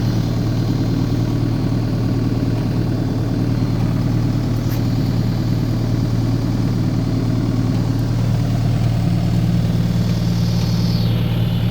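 Diesel engine of a 2021 New Holland C327 skid steer running steadily, with a brief falling high-pitched whine near the end.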